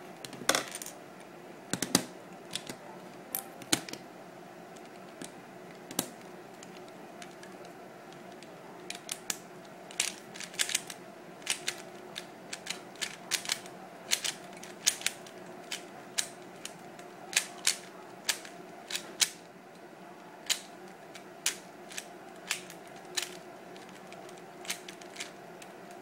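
Plastic speed cube's layers being turned in a solve: irregular sharp clacks, sparse at first, then coming in quick flurries, over a faint steady hum. The cube's tension screws are freshly tightened, which the solver finds a little too tight.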